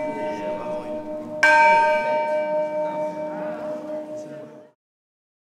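Newly cast church bell tuned to D sharp. The ring of an earlier stroke is still dying away when the bell is struck again about a second and a half in. Its tones ring on and fade until the sound cuts off abruptly near the end.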